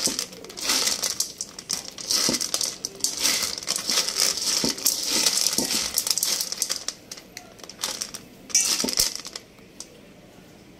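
Dry dog kibble and chunks of canned beef loaf being mixed by hand in a stainless steel bowl: the kibble rattles and scrapes against the metal in repeated irregular bursts, which stop about nine seconds in.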